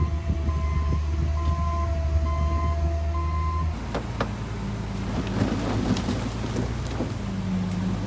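A heavy diesel construction machine running with its reversing alarm beeping steadily, about one beep a second. About four seconds in the sound changes abruptly to another engine running under load, with scattered clanks and rattles of metal and stone.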